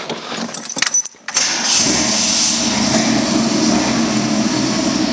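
Ford Bronco's 302 small-block V8 with full-length headers starting about a second in after a few key clicks, then running steadily at idle, heard from inside the cab.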